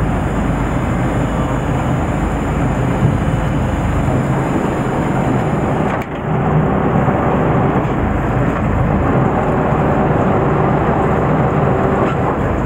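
Steady running of a fishing boat's engine under loud wind noise on the microphone. A nylon down jacket presses close against the microphone in the first half. There is a brief dip in the sound about halfway.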